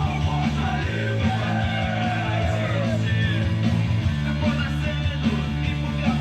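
Rock song playing, with electric guitar and a singing voice over a steady bass.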